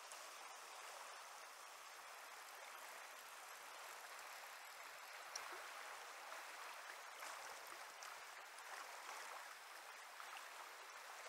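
Fast river current in high water, running as a steady, faint, even hiss of moving water.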